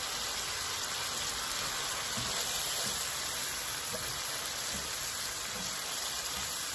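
Steady sizzling of food frying in hot fat on a gas hob: diced chicken in butter and oil being stirred with a silicone spatula, with prawns frying in a second pan alongside.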